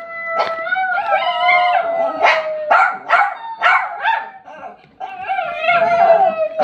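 Small dog 'talking': a drawn-out howling whine held on one pitch, broken in the middle by a run of about five quick, sharp yips, then another held howl near the end.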